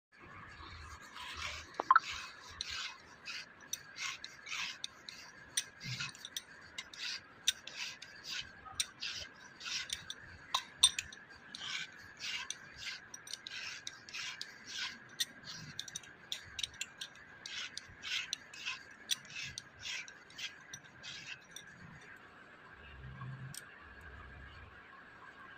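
Hand scraping on metal in quick repeated strokes, about two a second, that stop near the end, over a faint steady high tone.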